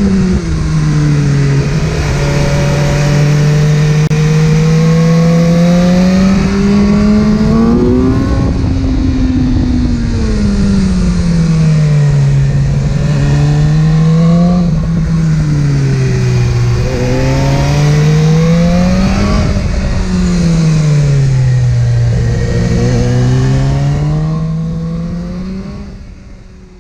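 Sport motorcycle's inline-four engine under way, its note climbing and falling several times as the throttle is rolled on and off. The sound fades out near the end.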